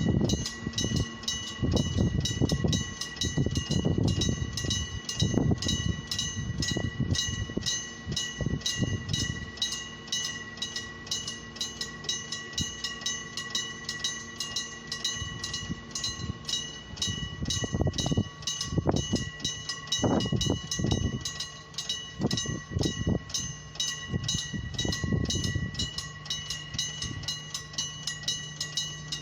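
Japanese level-crossing warning bell ringing in a steady fast rhythm, about three strikes a second, while a diesel train rumbles past, loudest in the first nine seconds and again in a stretch past the middle.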